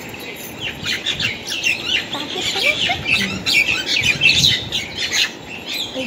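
A flock of birds chirping and chattering over each other, many quick overlapping calls.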